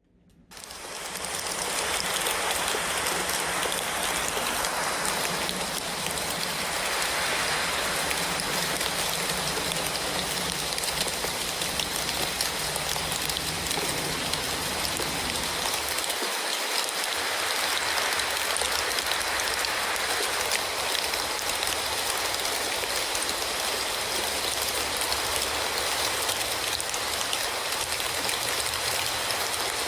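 Steady rain falling, a dense, even hiss of drops that starts about half a second in.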